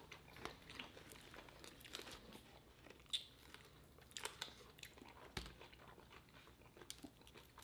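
Faint chewing and crunching of fried chicken close to the microphone, as a series of small crackles with a couple of louder crunches about 3 seconds and 5½ seconds in.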